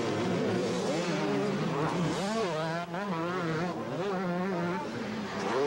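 Two-stroke motocross bikes racing, several engines revving up and down together as the riders accelerate and back off.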